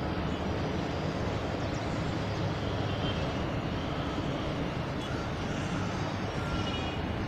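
Steady low rumble of distant city traffic, with a few faint high tones here and there.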